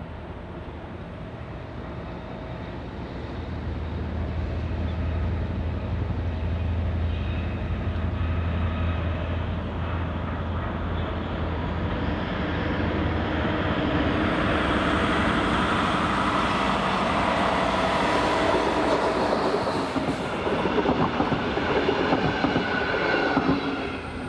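DB class 218 diesel-hydraulic locomotive hauling a passenger train past. Its engine's steady low drone builds first. From about halfway through, the louder rushing and clatter of the wheels on the rails takes over as the coaches pass, then it drops away sharply at the end.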